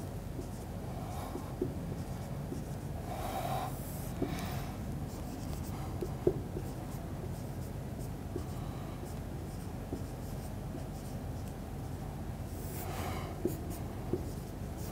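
Marker pen writing on a whiteboard: scattered squeaks, scratches and small taps as words are written out, over a steady low hum.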